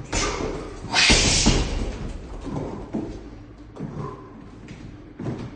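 Gloved punches thudding into a hanging heavy punching bag: a loud hit with a hissing rush about a second in, then a few quieter knocks.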